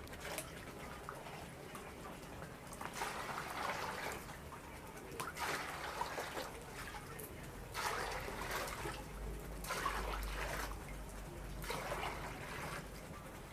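Milky liquid poured from a plastic dipper into a plastic basin through a cloth strainer, splashing in repeated pours a second or two apart.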